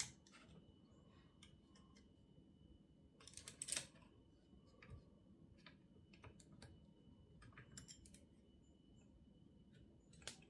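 Faint, scattered clicks and short scrapes of small hand tools and metal parts as a gasket is worked loose from a chainsaw engine. The loudest is a brief burst of scraping about three and a half seconds in.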